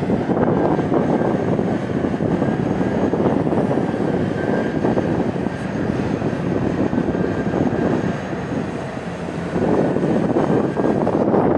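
Heavy diesel mining machinery at work: a large hydraulic face shovel loading haul trucks, a loud steady engine drone with a faint high whine over it, easing a little about eight seconds in before picking up again.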